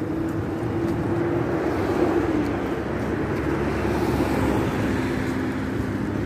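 Motor yacht's engines running as it moves slowly along the canal below: a steady low drone with a humming tone that wavers slightly, a second, lower hum joining about four seconds in.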